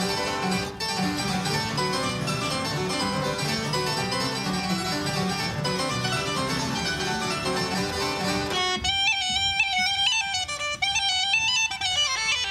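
Irish traditional instrumental music: a band of fiddle, wind and plucked instruments plays a lively tune. About two-thirds of the way through the lower instruments drop out and a single high, ornamented melody line carries on alone.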